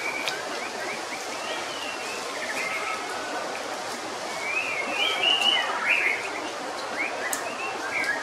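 Short high chirping calls, rising and falling in pitch, coming in small clusters over a steady outdoor hiss of forest ambience.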